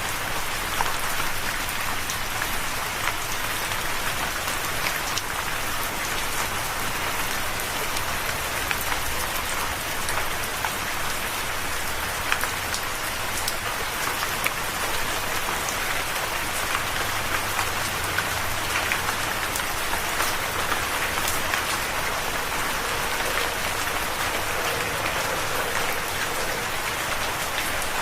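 Steady rain falling and pattering on surfaces, a dense even hiss flecked with countless small drop ticks.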